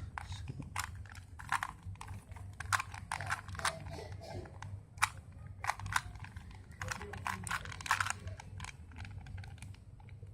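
Plastic 3x3 Rubik's cube being turned quickly by hand during a timed solve: rapid, irregular clicking of the layers snapping round, several clicks a second.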